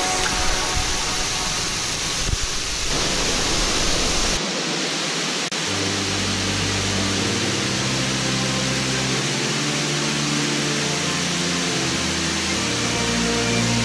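Muddy floodwater rushing over a stone weir and down rock slabs: a loud, steady rush of falling water. Soft music with held notes runs underneath from about six seconds in.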